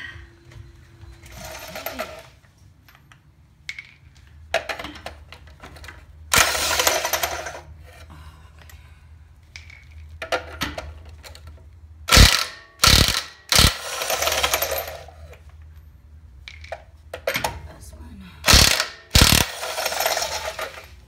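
Cordless Makita impact wrench hammering a truck wheel's lug nuts loose, in a series of short bursts, several of them in quick succession.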